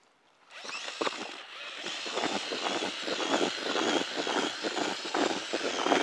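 Groundbait whisk spun by a cordless drill in a bucket, churning damp groundbait. It starts about half a second in and runs steadily, a motor whirr mixed with an uneven gritty rattle of the whisk through the mix.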